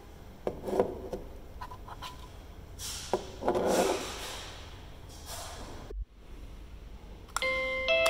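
Light plastic clicks and rustles as the doorbell receiver is handled. After a short break, about seven seconds in, the Un1que wireless plug-in doorbell receiver starts to play its chime: a melody of clear bell-like tones stepping upward in pitch.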